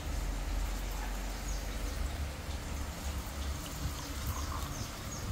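Tea pouring in a thin stream into a mug near the end, over a steady low rumble, with faint high chirps of small birds that slide down in pitch.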